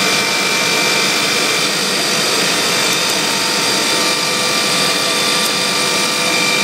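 Biesse CNC machining centre running: a steady machine hiss with several constant high whine tones over it.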